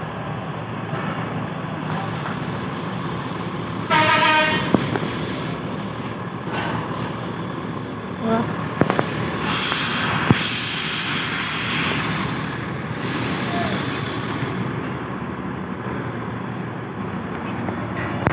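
Buses idling with a steady engine rumble. A horn sounds for about a second a few seconds in, and a hiss of about two seconds follows near the middle.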